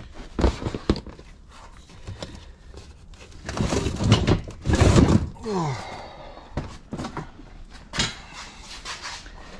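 Thumps, knocks and clatter of stored household items being shifted and set down. The loudest is a rattling stretch from about three and a half to five seconds in, followed by a short scraping sound falling in pitch, and one more sharp knock near the end.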